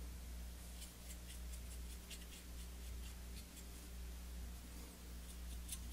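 A brush scratching in short, quick strokes against the body of an HO-scale model steam locomotive, brushing weathering powder downward into streaks. The strokes come in runs about a second in and again near the end, over a steady low hum.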